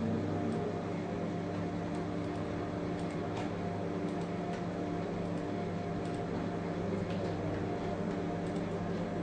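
A steady hum made of several low tones over a constant hiss, with a few faint ticks scattered through it.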